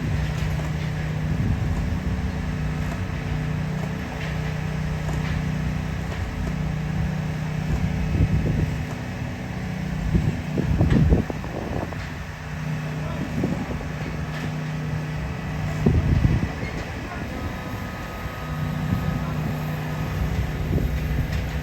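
Heavy construction machinery running, a steady engine hum that drops out briefly every couple of seconds, with a few louder knocks about halfway through.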